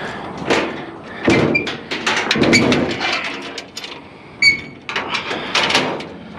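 Scrap metal clanking and scraping as pieces are shifted into place on a trailer: a run of knocks and scrapes with a few short metallic rings, the sharpest about four and a half seconds in.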